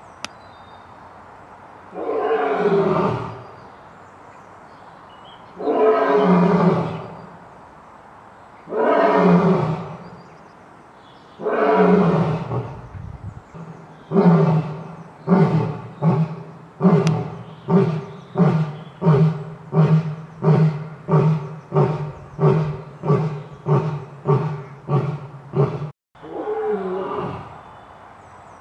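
Lion roaring a full roaring bout: four long roars about three seconds apart, then a run of about a dozen short grunts coming roughly once a second. After a brief break near the end, the bout starts over with another long roar.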